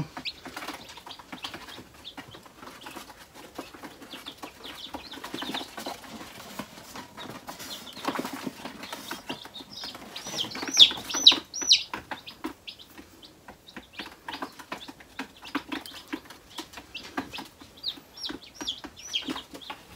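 Newly hatched silkie chicks peeping in short high cheeps, a quick run of them about ten to twelve seconds in and a few more near the end, over soft rustling and scratching from the chicks being handled in a cardboard box.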